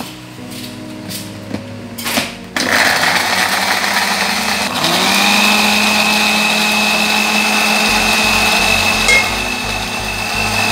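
Countertop blender: a couple of knocks as the jar goes onto the base, then the motor starts about two and a half seconds in and runs steadily, grinding fried garlic, dried chillies and dried shrimp in hot oil into a wet paste. A steady whine joins the motor a couple of seconds after it starts.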